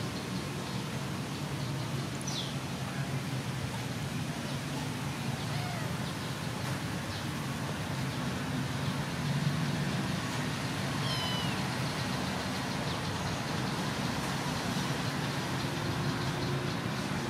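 A kitten meowing faintly a few times over a steady low rumble.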